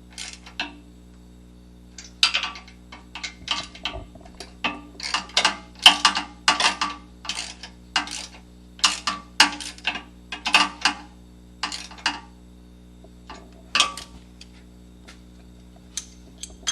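Socket ratchet on an extension clicking in repeated short runs as the skid plate bracket bolts are tightened, starting about two seconds in, over a steady low hum.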